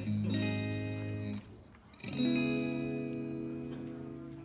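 Guitar playing the closing chords of a slow ballad: a chord rings, is cut short about a second and a half in, then a final chord is struck and left to ring out and fade.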